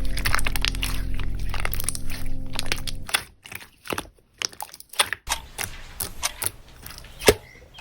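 Slime being squeezed and worked, making a run of crackling clicks and pops, with one sharper pop near the end. Background music with steady low tones plays under it and stops about three seconds in.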